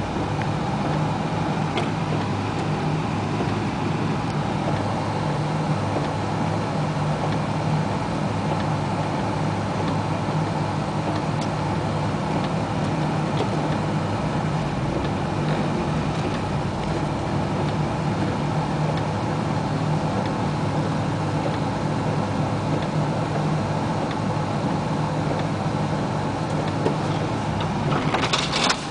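1988 Isuzu Trooper's engine running steadily at low speed, a constant hum heard from inside the cabin. A brief louder burst of noise comes near the end.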